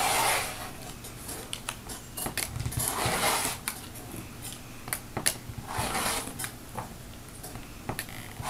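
Rotary cutter blade rolling through several layers of fabric and batting against a cutting mat, in rough hissing strokes about three seconds apart, going back over the thick layers to cut them through, with small clicks and taps of the ruler and cutter between strokes.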